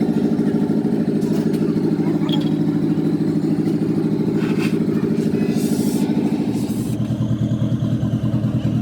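An engine running steadily, its sound shifting lower about seven seconds in.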